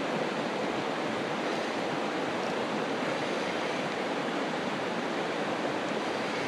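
Steady, even hiss of outdoor background noise, with no reel clicks, splashes or other distinct sounds standing out.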